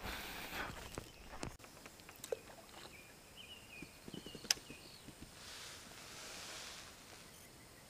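Quiet outdoor ambience at the water's edge, with scattered faint clicks and taps, a few short high chirps about three to four seconds in, a sharper click a little later, and a soft hiss lasting about a second and a half past the middle.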